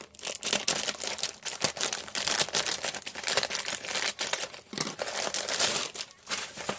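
A shipping package being torn open and handled: irregular crinkling, rustling and tearing of the wrapping.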